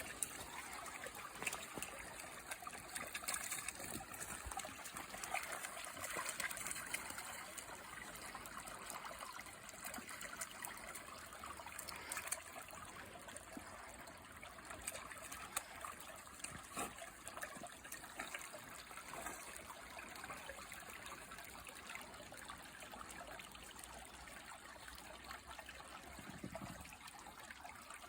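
Stream water trickling and flowing steadily, with many small irregular ticks in it.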